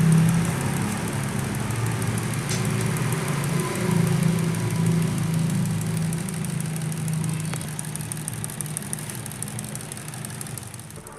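Small electric motor of a homemade mini ceiling fan running, a steady low hum with a fine high buzz over it, getting a little quieter toward the end.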